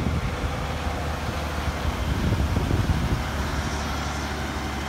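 Mack CH613 dump truck with a dump trailer passing close at low speed: the diesel engine running with a steady low rumble over tyre and road noise, getting a little fainter near the end.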